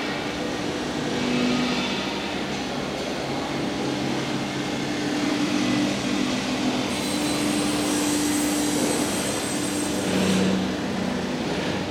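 Steady machinery hum of a large factory hall, with a few held low tones that come and go and a brief high hiss in the middle.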